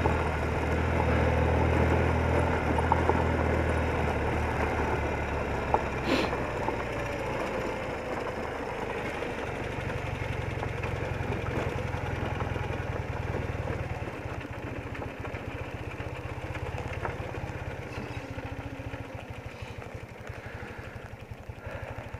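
BMW R80RT's air-cooled flat-twin engine running at low revs as the motorcycle creeps along a gravel track, gradually getting quieter as the bike slows to a stop. There is a single sharp click about six seconds in.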